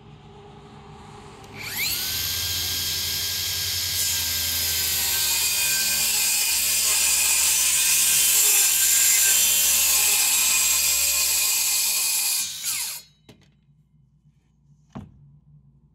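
Cordless DeWalt circular saw spinning up with a rising whine about two seconds in, cutting steadily through a sheet panel along a straight-edge guide for about ten seconds, then winding down with a falling whine. A single knock comes near the end.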